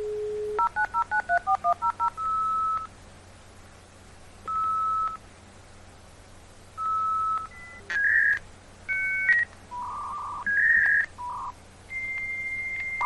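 Dial-up modem placing a call. A dial tone is cut short by a quick run of about eleven touch-tone digits, followed by single beeps about every two seconds while it waits for an answer. From about eight seconds in come the handshake tones, changing beeps and warbles that end in a long steady high tone.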